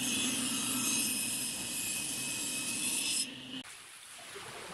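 Table saw running and cutting through pine: a steady motor hum under a bright hiss of the blade in the wood, stopping abruptly about three and a half seconds in.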